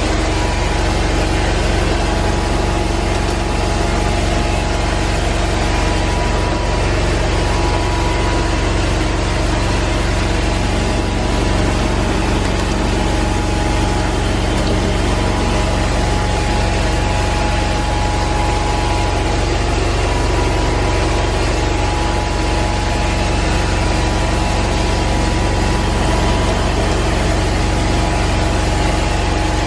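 Rotovac 360i rotary carpet-extraction head running over carpet under vacuum suction, a steady loud machine drone with a constant whine, extracting the cleaning solution from the pile.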